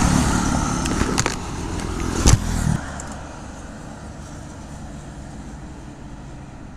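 Highway traffic passing close by: an engine runs loud for the first two and a half seconds or so, with two sharp knocks, then the noise drops suddenly to a low, steady road hum.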